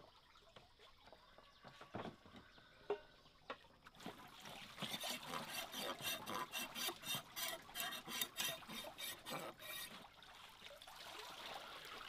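Hands washing food in a basin of water: a rhythmic run of splashes and sloshes, about three or four a second, after a few soft knocks. Near the end it gives way to a softer, steady trickle of water.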